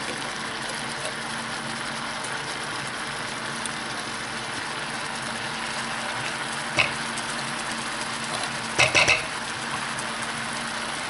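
Broccoli and water simmering in a stainless steel pan, a steady bubbling hiss with a low hum underneath. A spatula knocks once against the soup can about seven seconds in, then clatters three times in quick succession near the end as condensed cheese soup is scraped out into the pan.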